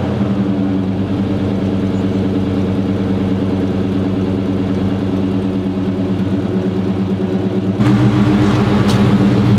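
1987 Chevy squarebody pickup's engine idling with a steady exhaust note, louder near the end.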